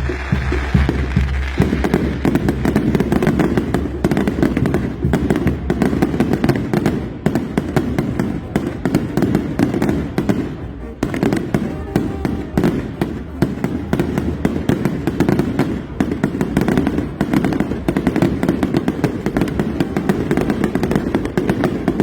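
Fireworks going off in a dense, continuous barrage of rapid pops and bangs.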